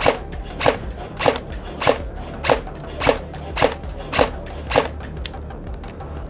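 Airsoft electric rifle (a Noveske AEG) fired in single shots at an interactive target screen, a sharp crack about every 0.6 seconds, nine in a row, stopping about five seconds in.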